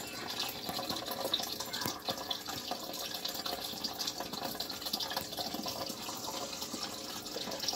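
Steady trickling and splashing of water in a turtle tank, with many small drips and ticks.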